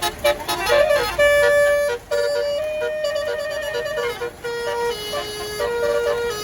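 Basuri telolet horn on a tour bus playing a tune: a string of held notes stepping up and down.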